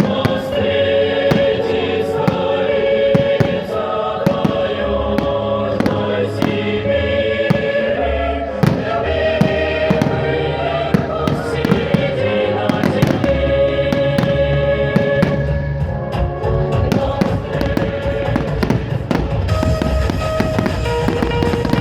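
Fireworks display: many bangs and pops in quick, irregular succession, over loud choral music with long held notes.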